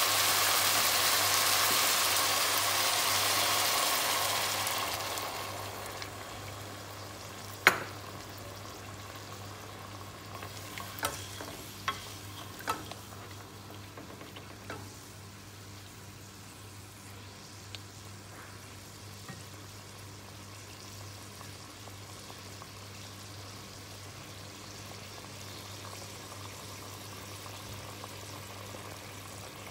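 Chicken pieces sizzling in a pot, the sizzle dying down about five seconds in as coconut milk is added. Then a wooden spoon stirs the pot, knocking sharply against it about five times, and the sauce settles into a quiet simmer.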